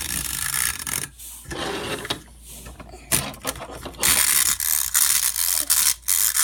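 Clockwork spring mechanism of a wind-up rooster toy, ratcheting and whirring with fine rapid clicking. It drops away about a second in and starts again strongly about four seconds in.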